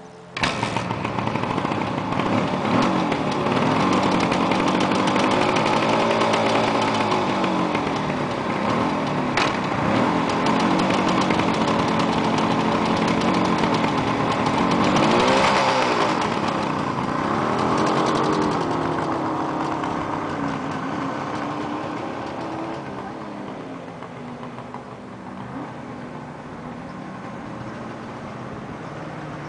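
A 1975 Suzuki GT750's water-cooled two-stroke three-cylinder engine starts about half a second in and runs, with a few blips of the throttle rising and falling in pitch. Over the last several seconds it fades as the motorcycle rides away.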